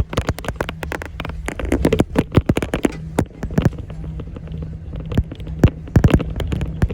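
Inside a moving school bus: a low steady engine drone under constant, irregular rattling and knocking of the bus body, windows and seats.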